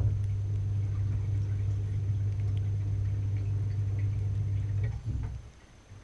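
Dishwasher pump motor humming steadily, starting suddenly and running about five seconds before it falters and cuts out. Faint scattered ticks come just before and after it.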